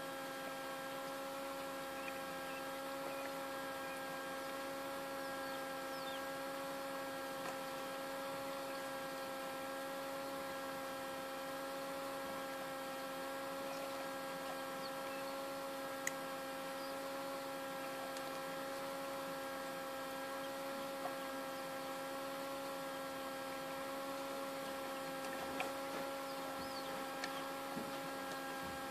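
Small egg incubator's fan motor running with a steady electric hum made of several held tones, with a few faint clicks scattered through it.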